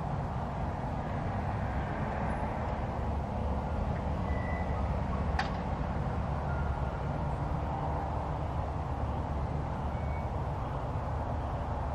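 Steady low outdoor rumble, with one sharp click about five and a half seconds in and a couple of faint, short high tones.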